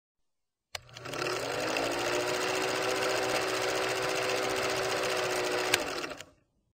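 Film projector sound effect: a rapid, even mechanical clatter over a steady hum that rises slightly as it starts up. It begins with a click about a second in, has a sharp click near the end, and stops shortly before the end.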